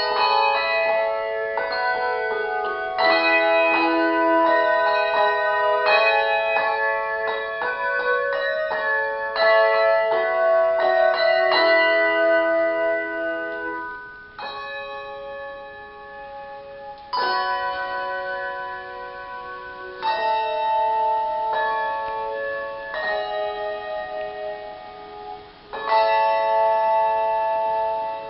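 Handbells playing a tune in ringing chords: quick, changing notes for the first half, then about halfway through slower chords rung roughly every three seconds, each left to ring and fade before the next.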